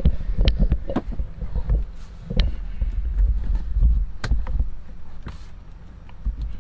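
Knocks, thumps and rustling as a mattress and its bedding are handled and pushed into place, with heavy low bumps in the first half and scattered sharp clicks.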